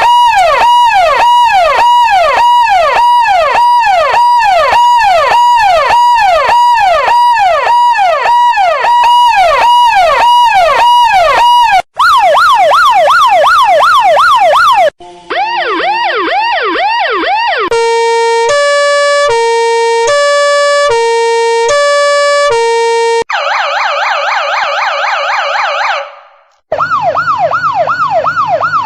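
A run of different electronic emergency-vehicle siren effects, changing every few seconds with brief breaks. First comes a fast up-and-down wail cycling about twice a second, then quicker sweeps. Near the middle is a two-tone siren alternating between a low and a high pitch, then a warbling siren, and fast sweeps again near the end.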